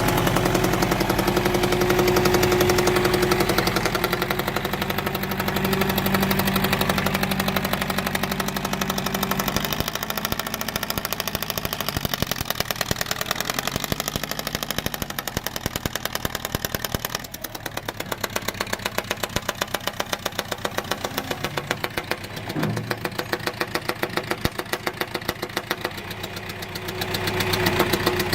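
John Deere 410 backhoe loader's diesel engine running with a rapid, even knocking of its firing pulses. The engine speed changes, dropping and quietening about halfway through and picking up again near the end.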